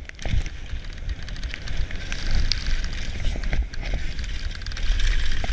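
Specialized Demo 7 downhill mountain bike ridden fast down a dirt trail: wind buffeting the camera microphone with a low rumble, the hiss of tyres on dirt and gravel, and frequent clicks and rattles from the bike.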